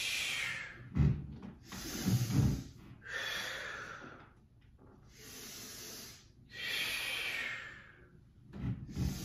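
A woman breathing hard and audibly through a set of Pilates roll-ups: several strong, hissing breaths in and out, timed to the rolling movement, with a few low thumps of body movement on the mat about a second in, around two seconds in and near the end.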